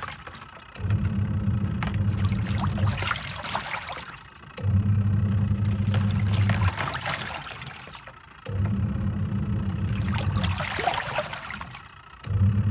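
Twin-tub washing machine on its wash cycle: the motor hums in runs of about two seconds with short pauses between, the pulsator stopping and reversing each time, and the water in the tub sloshing and splashing throughout.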